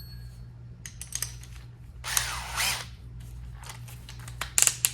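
A DeWalt cordless drill being handled and set up: sharp clicks and rattles, with a short burst of noise about two seconds in and a quick cluster of clicks near the end.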